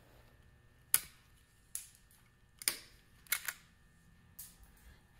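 Zip ties being cut: about six sharp snapping clicks at uneven intervals, the first, about a second in, the loudest.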